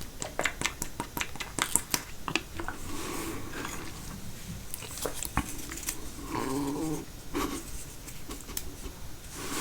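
Close-miked chewing of caprese salad (tomato and mozzarella): wet mouth clicks and smacks come quickly at first, then a few short throaty hums or grunts.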